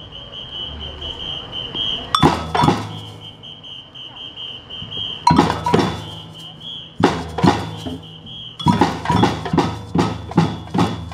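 A drum group of large stick-played drums, snare and congas striking short phrases: a few separate strokes, then a run of even strokes near the end. A steady, pulsing high-pitched tone runs underneath for most of the time.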